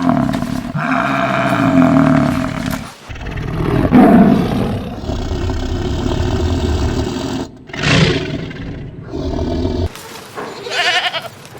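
A big cat roaring: a string of loud roars with short breaks between them.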